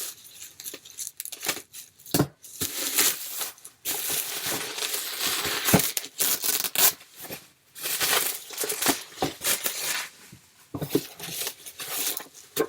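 A package being torn open and its wrapping crumpled by hand. There is a long tearing stretch in the middle, with shorter rips and scattered crinkles and taps around it.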